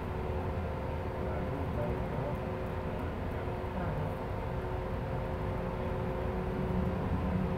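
Shuttle bus in motion, heard from inside the cabin: a steady engine and road rumble with a constant whine held at a few pitches.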